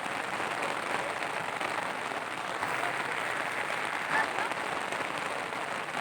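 Steady patter of rain, with faint voices in the background.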